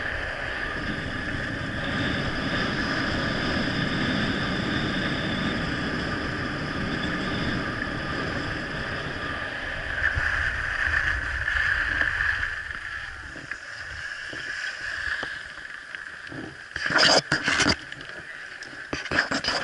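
Wind rushing over an action camera and skis running on packed snow during a fast downhill run, with a louder scraping surge about halfway through as the skis slow. The rush then fades, and a few sharp knocks and clatters come near the end.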